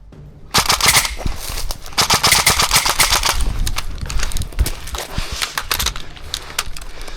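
Airsoft rifles firing on full auto: a rapid stream of shots starts about half a second in and goes on in long bursts with short breaks, thinning out toward the end.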